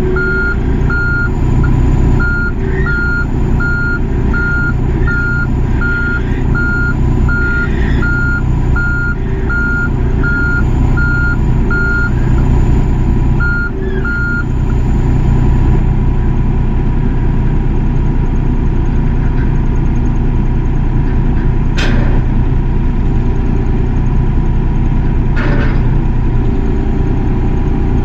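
Excavator's diesel engine running steadily, with its travel/reversing alarm beeping at about two beeps a second until about halfway through. Two sharp knocks come later.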